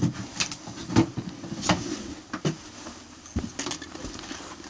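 Footsteps with carried gear clinking: a series of irregular sharp knocks and metallic clinks.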